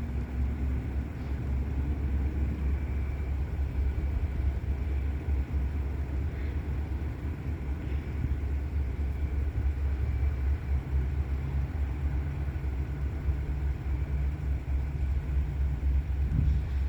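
Long Great Lakes Central freight train rolling past: a steady low rumble of the cars on the rails.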